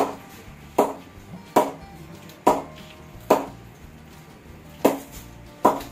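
Ping test of an MRF Legend VK18 English willow bat: a leather cricket ball is bounced repeatedly on the bat's face, giving seven sharp, ringing knocks about one every 0.8 s, with a short pause a little after the middle. The clean knock is what shows how well the willow pings.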